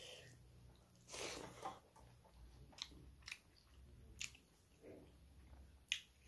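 Faint close-up eating sounds: chewing with a few sharp wet mouth clicks, and a short squishing burst about a second in as fingers mix rice and curry on a steel plate.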